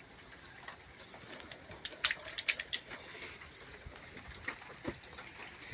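Rain falling, with raindrops tapping directly on the phone: a steady faint patter and a quick cluster of sharp taps about two seconds in.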